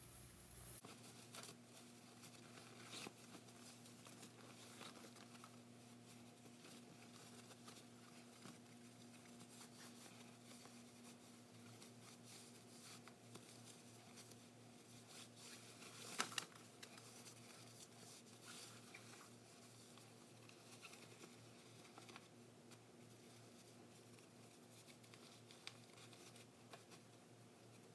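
Near silence with faint cloth rustling as a long fabric head wrap is wound and tied, over a faint steady electrical hum. A couple of sharp clicks come about 16 seconds in.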